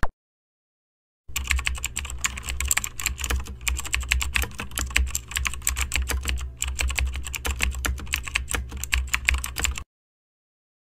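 Rapid, irregular keyboard-typing clicks, dense and continuous over a steady low hum, starting about a second in and cutting off abruptly near the end.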